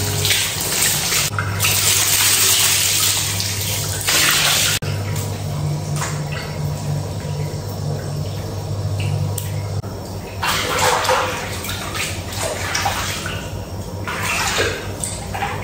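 Water poured over the body from a bath basin, splashing down onto the tiled floor for the first few seconds. After that it is quieter sloshing, with a few splashes as a person steps into a bath and sits down in the water.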